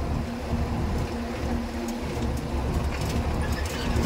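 Truck engine running and road rumble, heard from inside the cab while driving, with a steady low hum.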